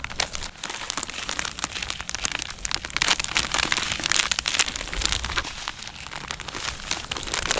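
Dry feeder groundbait pattering and rustling into a plastic bucket as it is poured from its plastic packet and stirred, with the packet crinkling: a dense, uneven run of small crackles.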